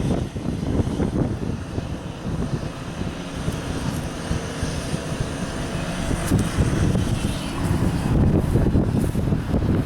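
Wind buffeting the microphone in gusts over a steady, distant engine drone.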